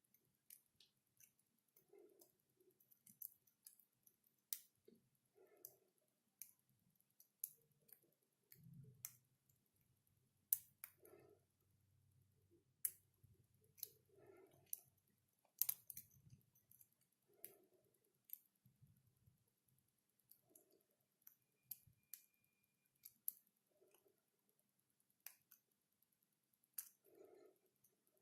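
Lock pick working the pins of a Titan dimple Eurocylinder: faint, irregular clicks and ticks as the pins are probed and set under tension. Soft low puffs recur every second or two.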